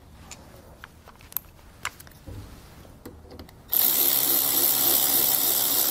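A few light metal clicks, then a cordless electric ratchet starts suddenly about two-thirds of the way in and runs steadily, spinning the 10 mm nut down onto the negative battery terminal post.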